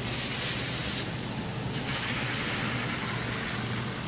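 Steady outdoor background noise: a constant low hum with a hiss that swells over the first two seconds and then eases off. No thunder is heard from the lightning flashing overhead.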